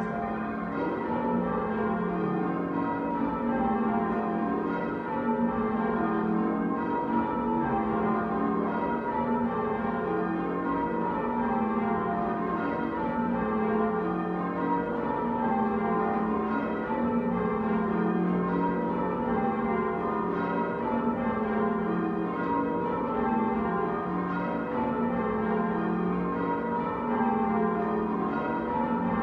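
Church tower bells being change rung, their ropes pulled by a band of ringers: a continuous stream of bell strokes in sequences that fall in pitch and repeat every couple of seconds.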